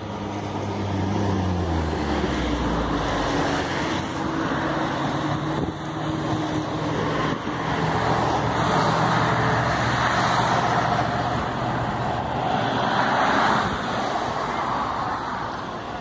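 Road traffic passing close by. In the first few seconds a vehicle's engine note drops in pitch as it goes past. Then cars pass with tyre and engine noise that swells and fades twice, loudest shortly before the end.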